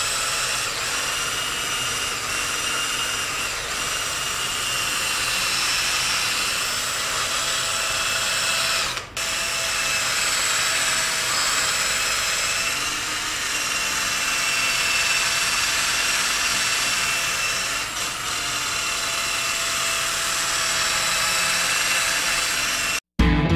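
Cordless drill spinning a homemade foam polishing pad on a wooden disc, buffing wax onto a wooden shelf. It runs steadily at a constant pitch and stops for a moment about nine seconds in.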